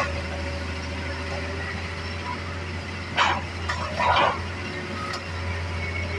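Hitachi excavator's diesel engine running with a steady low drone, while a dog barks twice, about three and four seconds in.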